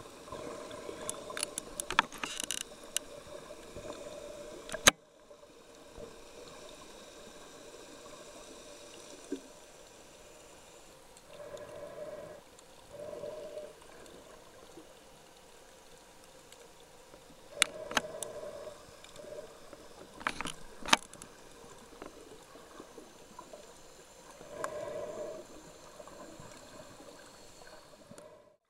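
Muffled underwater sound picked up through a compact camera's waterproof housing: a steady watery hiss with short swells of sloshing now and then, and scattered sharp clicks and knocks.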